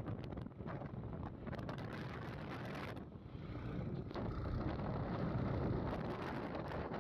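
Wind buffeting the microphone on a moving TVS Raider 125 motorcycle, a steady rush with crackling gusts. The motorcycle's running and road noise sit underneath.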